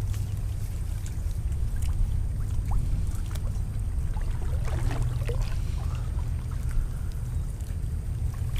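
Water lapping and trickling against a kayak hull under a steady low wind rumble, with a few faint knocks.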